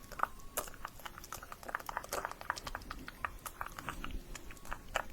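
ASMR mouth sounds: a quick, irregular run of small wet clicks and smacks from lips and tongue, several a second.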